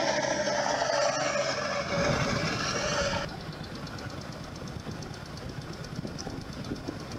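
Diesel engine of an 8060 combine harvester running as the machine drives along a gravel track, loud for the first three seconds, then dropping sharply to a quieter, steady running sound.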